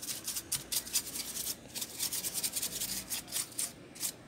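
A small brush scrubbed in quick back-and-forth strokes over a laptop's RAM module and memory slot area, cleaning off dust. It is a dry rubbing, several strokes a second, with a couple of brief pauses.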